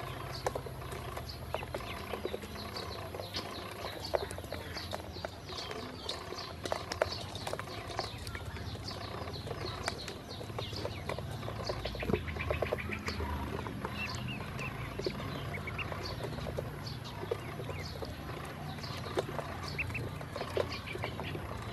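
A group of ducklings peeping in rapid, overlapping high chirps, with scattered sharp taps of bills on a stainless steel bowl and waterer. A low rumble runs underneath.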